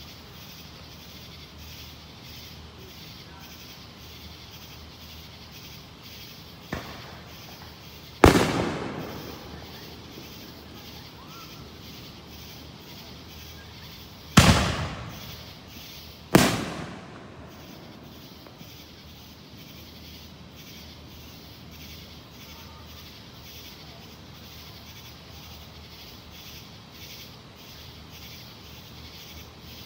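Fireworks going off: a faint pop about seven seconds in, then three loud bangs, each echoing away over a second or two, the last two about two seconds apart.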